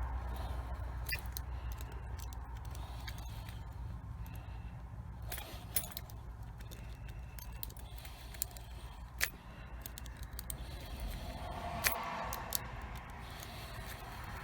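Lock pick and tension wrench working inside a small 40 mm padlock: faint metallic scraping and rattling, with scattered sharp clicks as the pins are raked.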